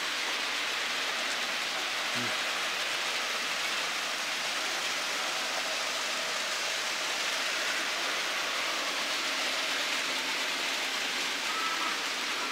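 Steady, even rushing hiss of OO gauge model trains running on the layout's track. It has no clear rhythm or pitch, and the faint hall ambience may be mixed in.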